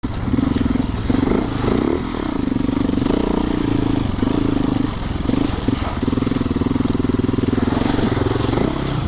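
Yamaha YZ450FX single-cylinder four-stroke dirt-bike engine running under changing throttle, its pitch dropping and climbing again several times.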